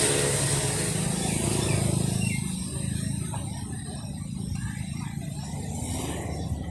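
A steady low mechanical hum in the background, with a few faint chirps, likely birds.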